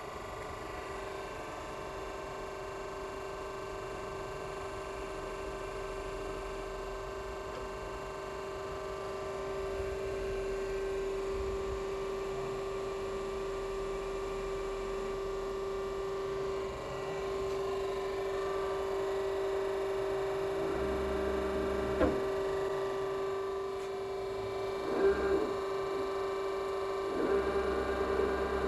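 Estarta 312 centerless grinding machine running: a steady humming whine, with a few short knocks in the last several seconds.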